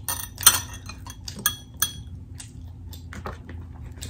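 A run of sharp clinks and clicks against a glass bowl while ground meat is scooped from it into a hard corn taco shell, the loudest about half a second in.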